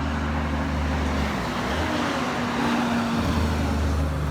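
Oversized heavy truck passing close on a highway: a loud, low engine drone whose note shifts in pitch midway, over tyre and road noise.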